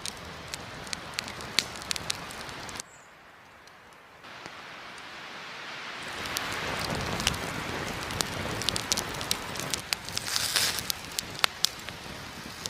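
Wood campfire burning, crackling with frequent sharp pops over a steady hiss. It drops quieter for a moment about three seconds in, then grows louder from about six seconds on.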